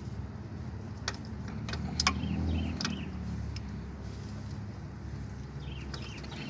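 A passing vehicle's low rumble swells and fades about two and a half seconds in. A few sharp metal clicks and some faint bird chirps sound over it.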